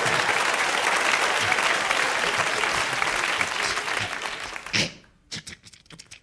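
Studio audience applauding. It cuts off abruptly about five seconds in, leaving only a few scattered claps.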